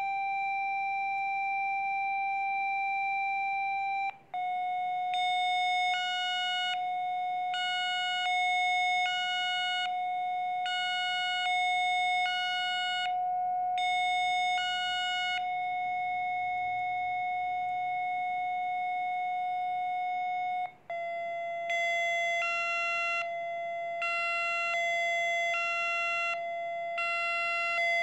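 Synthesized Rife frequency tones: a steady electronic drone at about 700 Hz, with higher tones switching on and off about once a second. The drone briefly cuts out and steps slightly lower in pitch about four seconds in and again about twenty-one seconds in.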